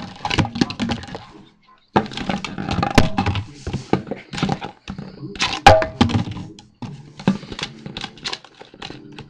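Empty plastic soda bottle being knocked and bitten at by a small dog: a rapid, irregular run of crinkling cracks, clicks and thunks of thin plastic, with a brief pause about a second and a half in.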